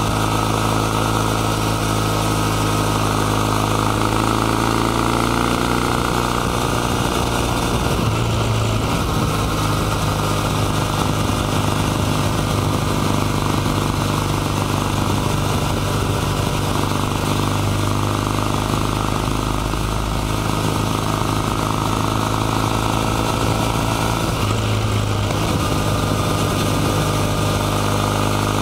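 Kawasaki W800 Cafe's air-cooled vertical-twin engine with its 360° crank, running under way with the exhaust pulsing. Its note climbs in pitch over the first few seconds as the bike accelerates, then settles and changes again about a third of the way in and near the end.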